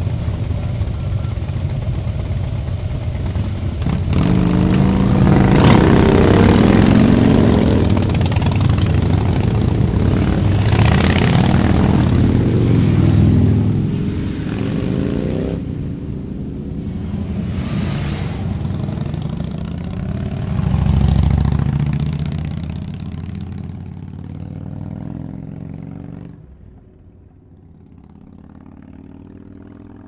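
Harley-Davidson V-twin motorcycle engine running, louder from about four seconds in, with several surges of revs rising and falling in pitch. The sound falls away over the last few seconds.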